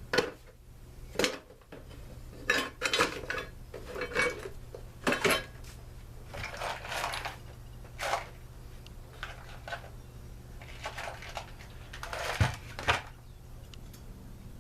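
Small metal parts and tools clinking and knocking against each other and the bench, at irregular intervals, while a leaf blower muffler is handled and fitted. A low steady hum sits under the clinks.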